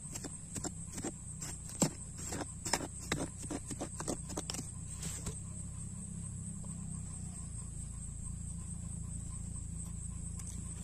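Small hand pick chopping and scraping into hard, dry dirt: a quick, irregular run of sharp knocks through the first half that stops about halfway. After that only a steady low hum and a thin, high steady tone remain.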